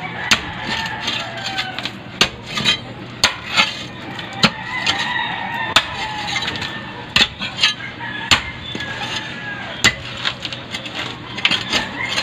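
Metal digging bar striking stony soil: a dozen or so sharp, irregular strikes as a planting hole is dug.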